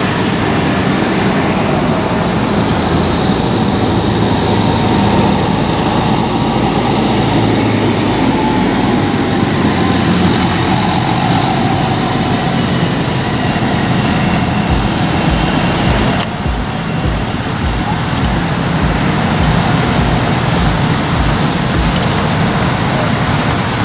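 Large modern farm tractors driving past one after another, their diesel engines running steadily with a loud, continuous hum.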